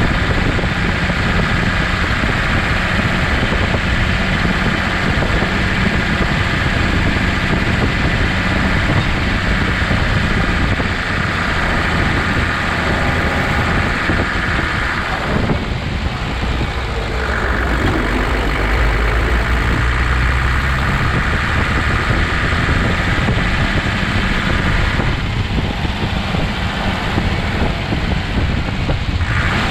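Toyota Land Cruiser HJ75's 2H straight-six diesel engine running steadily. Its sound shifts briefly twice, once around the middle and once near the end.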